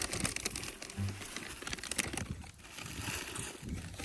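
Crinkling and rustling of plastic packaging being handled, in a stream of quick irregular crackles.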